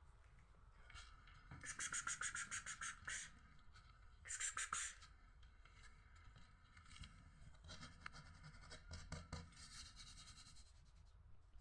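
Rapid scratching against a surface in two short, louder bouts about two and four seconds in, then fainter scratching later on.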